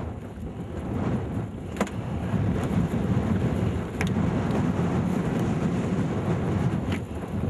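Wind buffeting the camera microphone on an open boat: a steady low rumble, broken by three sharp clicks a couple of seconds apart.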